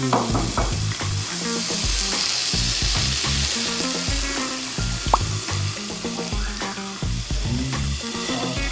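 Shrimp sizzling steadily as it fries in a pan, with one short click about five seconds in.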